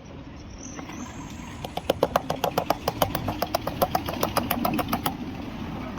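A fast run of sharp metallic clicks or taps, about six a second, lasting some three seconds over a steady low mechanical hum.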